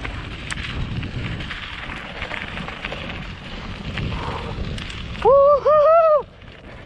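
Wind rushing over the microphone and tyres rumbling on a dirt trail as a mountain bike rolls along. About five seconds in, the rider lets out a loud three-note whoop, "woehoehoe".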